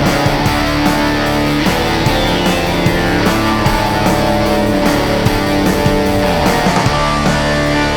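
Background music: rock with guitars and a steady beat.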